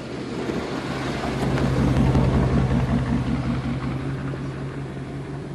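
A car driving, its engine and road noise swelling to a peak about two seconds in, then slowly fading.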